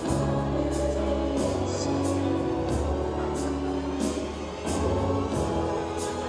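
Music with singing voices over held chords and a regular beat.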